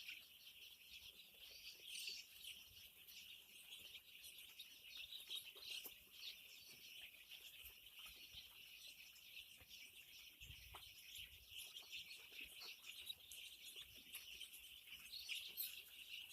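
A flock of five-day-old chicks peeping: a faint, continuous chorus of many overlapping high chirps.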